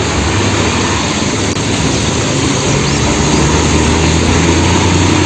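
A Hino concrete mixer truck's diesel engine runs with a steady low hum as the truck drives slowly along a wet road, under a constant hiss.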